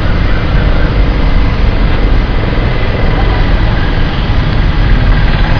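Loud, steady traffic noise with a deep rumble.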